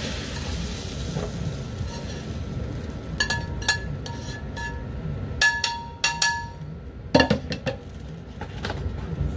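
Metal tongs clinking and scraping against a frying pan as stir-fried noodles are tipped out, several short ringing clinks, then a few louder knocks and clatters as the pan is set back down.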